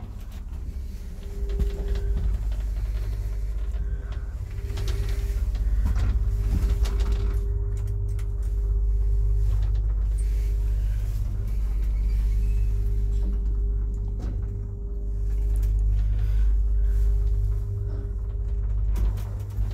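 IFMA T150 traction lift running, heard from inside the car as it travels upward: a steady low rumble with a thin hum over it. It builds about a second in and eases off near the end.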